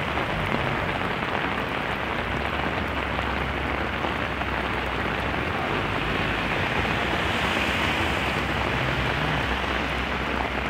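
Steady rain falling, with a low steady hum underneath.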